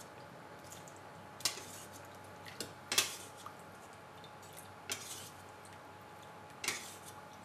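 A metal ladle knocking now and then against a stainless-steel pot, about five sharp clinks, while soy-sauce braising liquid is scooped and poured over a whole chicken. The loudest clink comes about three seconds in.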